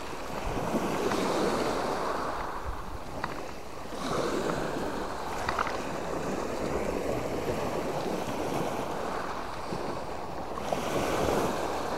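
Small sea waves breaking and washing up a shingle beach, the wash rising and falling with each wave.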